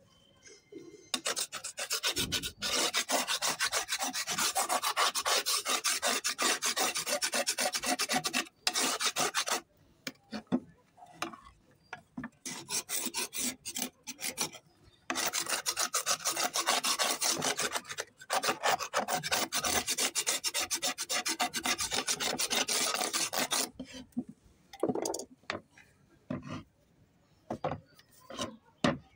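Flat pink shalestone slabs scraped across one another: long grating stone-on-stone scrapes in three stretches of several seconds each, then a few light knocks and clicks near the end.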